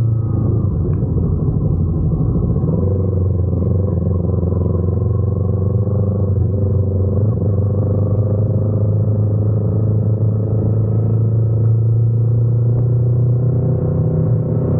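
Motorcycle engine running steadily, a low continuous drone whose pitch shifts only slightly.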